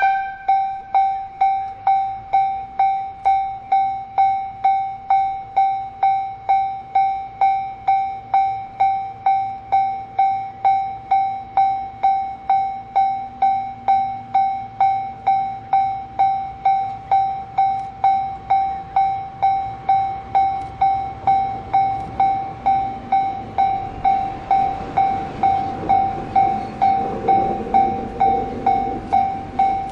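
Electronic level-crossing warning bell dinging steadily about twice a second as a DD200 diesel-electric locomotive approaches. The locomotive's engine and running noise swell in over the last few seconds.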